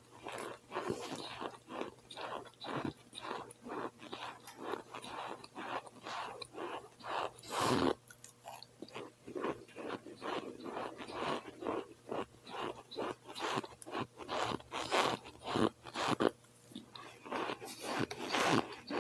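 A person chewing and biting cold boiled cornstarch chunks: a steady run of chews, about two to three a second, with two louder moments about eight seconds in and near the end.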